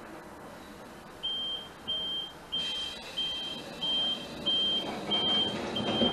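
Door-closing warning signal of an EN57AKM electric multiple unit: a row of about eight short, evenly spaced high beeps, roughly one and a half a second, starting about a second in. Near the end the sliding doors run shut.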